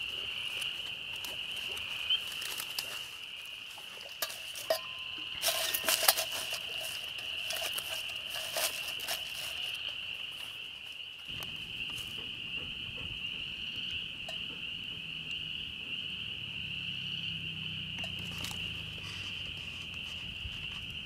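Knife scraping and clicking against a wooden peg and tree bark as the sharpened peg is worked into a hole bored in a birch trunk: a cluster of sharp clicks a few seconds in and a few more a little later. Behind it runs a steady high-pitched animal chorus.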